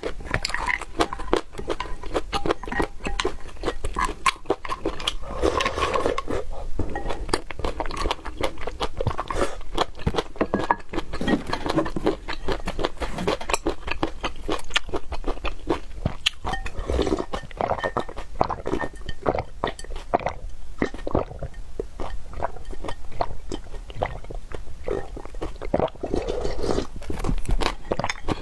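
Eating sounds: a person chewing and crunching food, a dense stream of crackly bites and mouth noises that goes on without a break.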